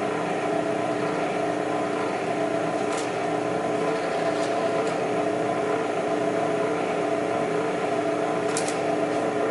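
Precision Matthews PM-935TV milling machine running steadily with its spindle turning free between cuts, a steady hum of several even tones, with a couple of faint clicks as the knee is cranked up a few thousandths.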